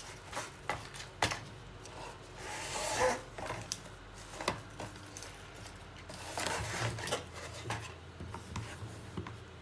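Packaging being handled: a plastic insert tray and cardboard box rubbed and tapped together, with plastic wrap rustling. Scattered light clicks and two longer rustles, the louder one about three seconds in and another around six to seven seconds.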